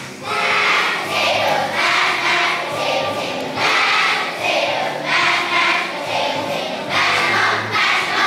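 A choir of young children singing together, in short regular phrases with brief breaks between them.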